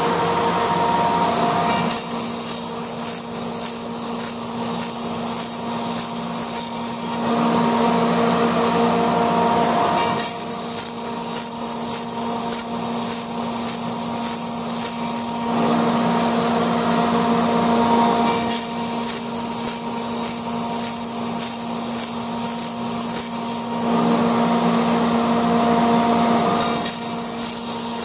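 Laguna Smartshop II CNC router cutting through foam: a steady machine noise with a whine from the spindle. Every few seconds its sound switches between a brighter hiss and a lower hum.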